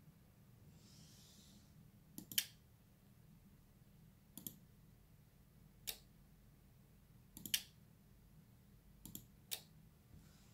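Computer mouse button clicking about eight times, singly and in close pairs, every second or two, as the TX control of the radio-control software is clicked.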